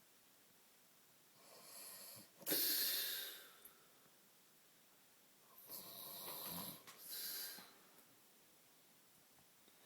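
A man snoring in deep sleep: two snoring breaths about four seconds apart, each in two rasping parts, the loudest about two and a half seconds in.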